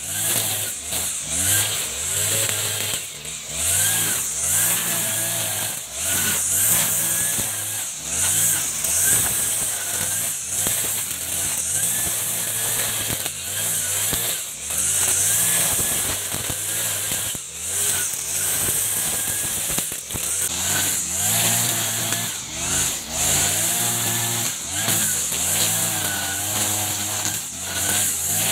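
Echo RM435 40cc two-stroke brush cutter running with a nylon line trimmer head, its engine revving up and down every second or two as the spinning line cuts through thick grass, over a steady high hiss from the line.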